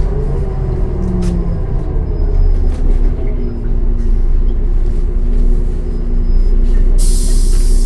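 Solaris Urbino 10 city bus with a MAN D0836 six-cylinder diesel running steadily at low revs after slowing, with a few light clicks. Near the end, a loud burst of compressed air hisses out.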